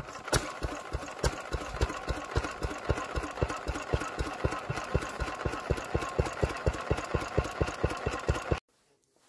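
Small vintage air-cooled stationary engine running steadily after a hand start, with even, regular exhaust beats. The sound cuts off abruptly near the end.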